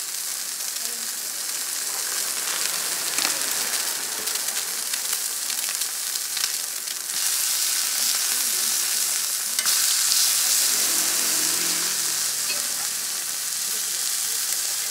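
Meat patties and fried eggs sizzling on an oiled flat-top griddle, a steady hiss that grows louder about halfway through, with a single sharp click a little later.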